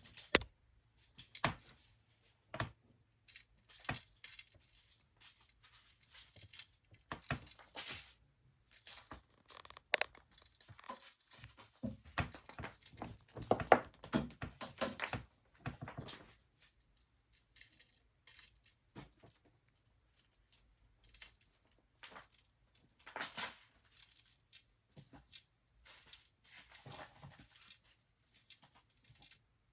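Close, irregular crinkling, tearing and light tapping of packaging being handled and unwrapped.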